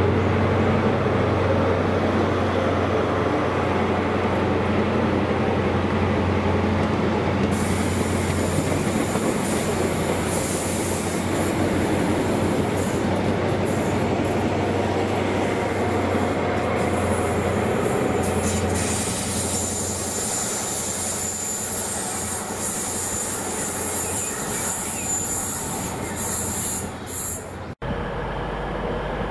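A Class 43 HST power car's diesel engine running with a steady low hum as the train passes, its coaches rolling by over the rails. From about seven seconds in there is a high-pitched wheel squeal and hiss over the rolling noise. The sound eases off after two-thirds of the way through and cuts off abruptly near the end.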